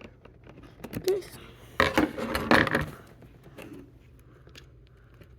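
Cardboard box being handled and the packing tape on it cut with scissors: a burst of scraping and crackling about two seconds in, then quieter handling.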